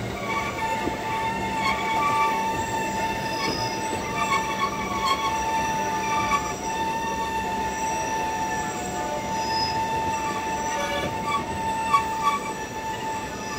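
Bernina Express train's steel wheels squealing as it rounds the tight curve of a spiral viaduct: one steady high-pitched squeal with fainter higher tones above it, over the running noise of the carriages. There are a couple of brief knocks, the sharpest about twelve seconds in.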